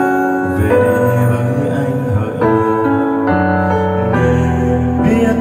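Karaoke backing track playing an instrumental passage of sustained piano and keyboard chords that change every second or so, with no singing.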